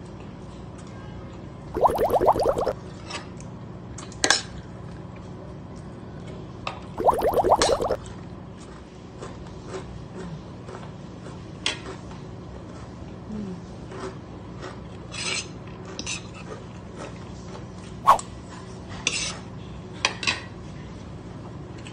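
Fork and spoon clinking and scraping on plates while eating, a handful of separate sharp clinks and short scrapes spread through. A voice is heard twice briefly, near the start and about a third of the way in.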